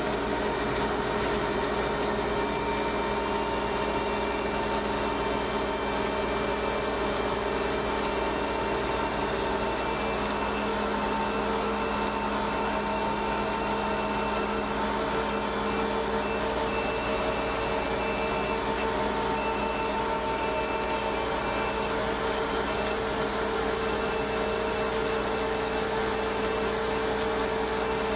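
Bulk feed trailer's hydraulically driven auger system running under the truck's power: a steady mechanical hum with several constant tones under an even hiss.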